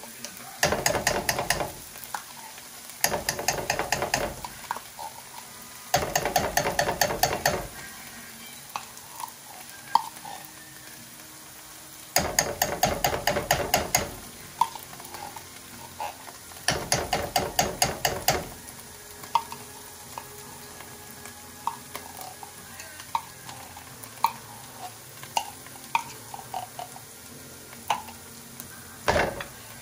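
A metal spoon scraping tomato paste out of a can, in five rapid scraping bursts of a second or two each, over minced garlic sizzling steadily in oil in a frying pan. Small scattered pops from the hot oil come through between the bursts, mostly in the second half.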